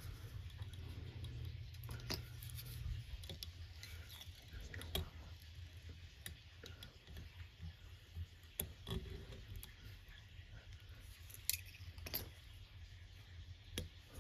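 Faint scattered clicks and small handling sounds of fly tying at the vise, as thread is wrapped and tools are handled while the fly's head is finished, over a low steady hum.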